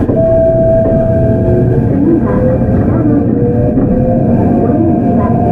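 Hokuriku Railroad 03 series electric train running: the Mitsubishi IGBT inverter and traction motors whine, first on a steady note, then rising in pitch as the train gathers speed, over heavy wheel-and-rail rumble.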